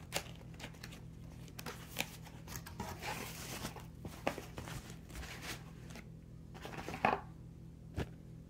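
A gift box and its packaging being opened and handled: scattered clicks and taps, with a short stretch of rustling about three seconds in.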